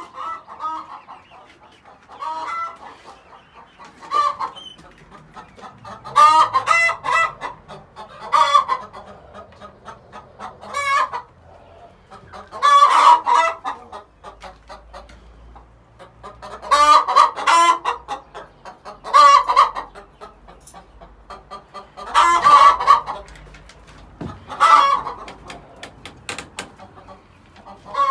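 Chickens clucking and calling loudly, with a strong call every two to four seconds and softer clucks in between.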